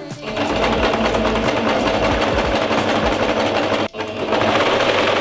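Singer electric sewing machine stitching through fabric at a steady, fast rate, the needle ticking rapidly. The run breaks off sharply about four seconds in, then picks up again.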